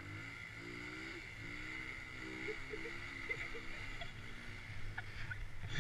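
A quad's engine idling steadily close by, while a small mini dirt bike's engine revs up and down repeatedly further off.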